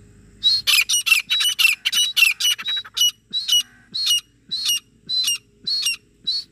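Grey francolins calling: a run of short, sharp, high calls, rapid and crowded at about five a second from half a second in, then slowing to one call roughly every half second.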